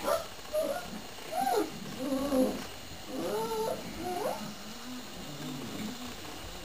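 Spanish Mastiff puppies, nearly four weeks old, whining and squeaking in short, bending calls, several in the first four seconds, then softer low grunts.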